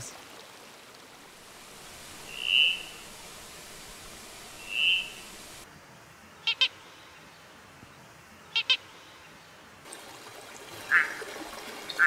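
A sequence of frog calls over a steady hiss of stream noise. First come two short, high peeps about two seconds apart. Then a mossy red-eyed tree frog (Duellmanohyla soralia) gives two quick clicking calls about two seconds apart, and near the end a Cusuco spike-thumbed frog (Plectrohyla dasypus) gives a short call.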